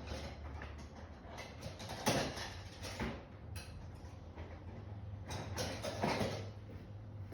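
Rummaging for a different-sized tool: a few knocks and sliding rattles of tools being handled and moved about, over a steady low hum.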